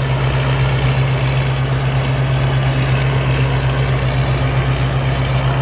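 Thai Seng rice combine harvester running steadily with its engine revved up for harvesting: a constant low engine drone with a thin, steady high whine above it.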